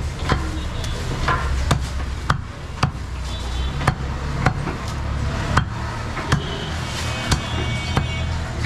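Cleaver chopping goat meat on a wooden block: sharp blows in a steady rhythm, a little more than one a second, over a low background rumble.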